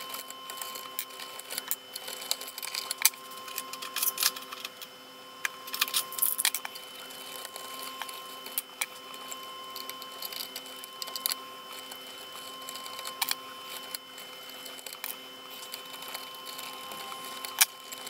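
Quick irregular clicks and taps of needle-nose pliers and small metal parts as dial lamps are pulled and fitted inside a vintage Pioneer SX-6000 stereo receiver, over a faint steady hum of a few held tones.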